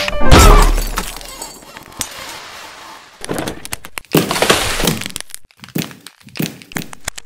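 A sudden loud crash with a deep boom and a shattering sound, like breaking glass, about a quarter-second in, fading over about a second. From about three seconds in comes a run of crackles, rustles and knocks.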